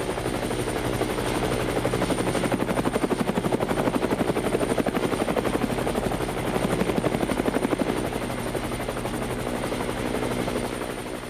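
Helicopter rotor chopping with a fast, even beat over a steady high whine. It swells through the middle and eases off near the end.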